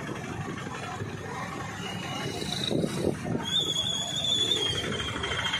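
Street traffic: motorbike and auto-rickshaw engines with road noise, heard from a moving vehicle. A thin, steady high-pitched tone comes in about two seconds in and steps up in pitch a second later.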